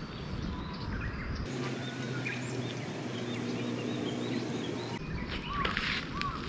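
Outdoor countryside ambience with small birds chirping repeatedly, over a low steady hum in the middle part.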